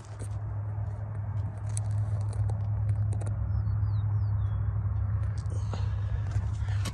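Footsteps crunching on gravel, scattered clicks and crackles over a steady low hum, with a few faint high chirps about halfway through.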